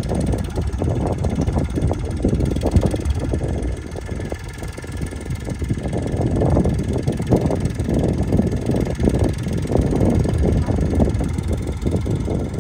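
Tractor engine running as it works the field at sowing, heard from a distance as a low, uneven rumble.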